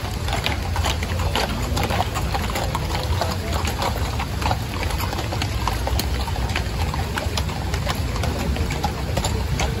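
Hooves of several horses clip-clopping on a paved street as they walk past at close range: many irregular, sharp hoof strikes over a steady low background rumble.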